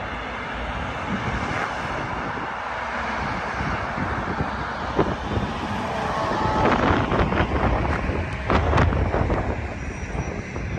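Steady rumbling and rushing noise of a moving vehicle, with clattering knocks and a brief squeal in the second half.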